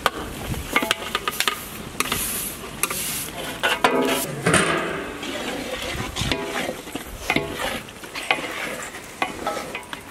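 Metal ladle stirring and scraping in large aluminium cooking pots, with repeated clinks and knocks against the pot rims.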